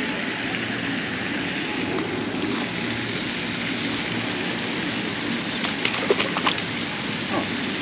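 Steady rush of water, with a short burst of sharp splashes about six seconds in as a hooked carp thrashes at the surface near the bank.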